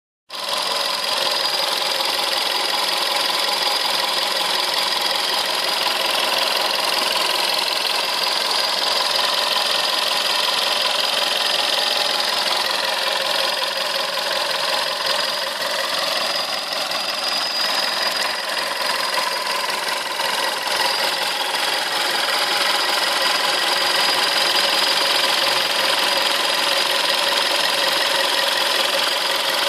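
Volkswagen 1.4 TSI 122 hp petrol engine idling fully warm with a metallic ticking and knocking like a pneumatic hammer, not very loud. The owner takes the noise to come from the timing system area.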